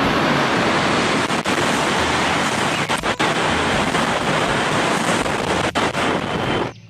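Steady, rushing hiss of spraying water, broken by a few momentary dips, that stops abruptly just before the end.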